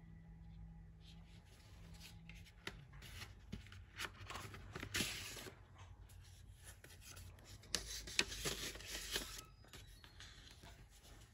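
Paper rustling and sliding as a CD is handled in its white paper sleeve and drawn out of it, in two stretches of rustle with small clicks, about four and eight seconds in.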